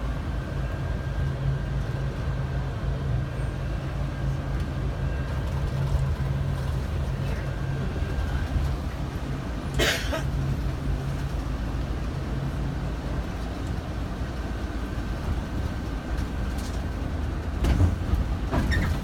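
Tour coach's engine running steadily, heard from inside the coach; its low hum drops away about two-thirds of the way through. A short, sharp hiss comes about halfway through, and a few knocks near the end.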